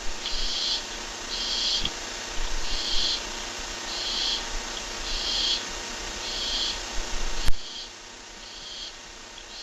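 Barn owl giving short, rasping hiss calls about once a second, over a faint steady hum. A sharp click comes about three-quarters of the way through.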